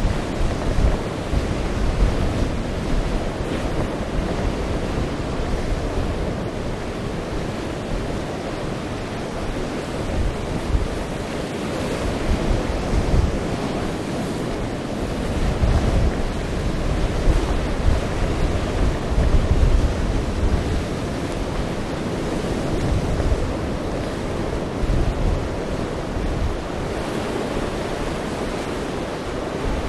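Stormy sea with waves surging and breaking, and strong wind buffeting the microphone in uneven gusts.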